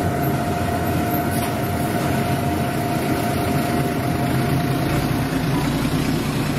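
Automatic momiji manju baking machine running with a steady low hum and a thin steady whine that stops about five seconds in; one faint click about a second and a half in.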